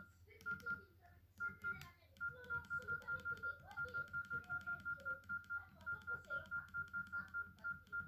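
Nokia 6630 mobile phone beeping at one high pitch: a few scattered beeps, then a quick steady run of about four beeps a second from about two seconds in.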